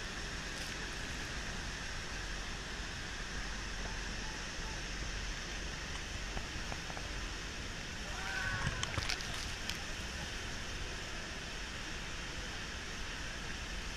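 Steady roar of Niagara Falls' falling water, an even rushing noise. A brief faint voice cuts through about eight seconds in.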